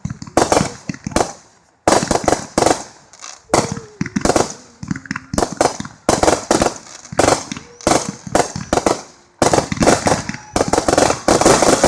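Neighbourhood fireworks going off: a rapid, continuous series of sharp bangs and pops, densest near the end.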